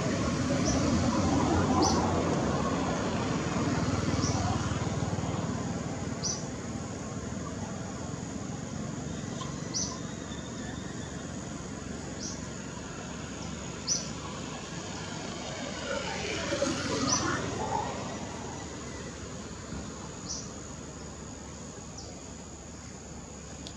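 Forest ambience: a steady high-pitched insect drone, with short high chirps repeating every one to three seconds. A low rumble in the first few seconds fades away, and there is a brief louder scratchy sound about two-thirds of the way through.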